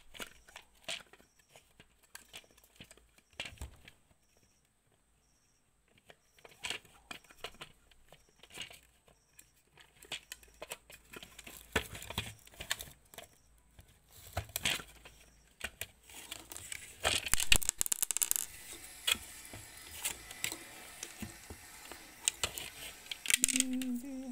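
Handling noise from the wires and plastic housing of a small electrical appliance being worked on: scattered clicks and rustles, growing into louder, denser rustling and clatter about two-thirds of the way through.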